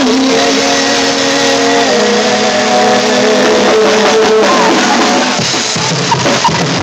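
Live band music: held keyboard notes changing every second or two over a drum kit.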